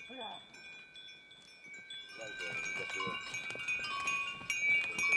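Cowbells on walking cattle clanking irregularly, their metallic tones ringing on between strikes.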